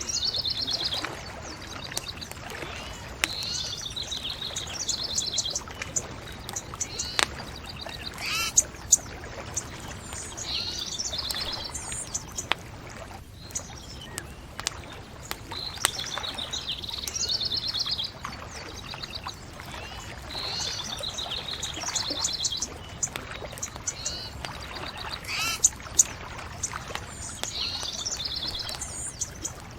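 Birds singing rapid trilled phrases that repeat every few seconds, with a few sharp pops from a crackling bonfire over a steady low background rush.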